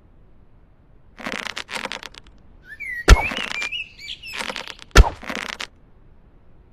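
Bow-and-arrow sound effect: rustling handling noise, then two sharp snaps about two seconds apart, the loudest moments. A squeaky, wavering tone rises and falls around the first snap.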